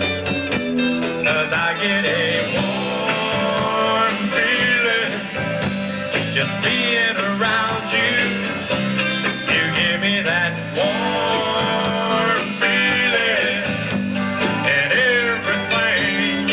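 Live country-rock band playing a song: electric guitars, bass guitar and drums, with a lead line bending up and down in pitch over a steady bass pattern.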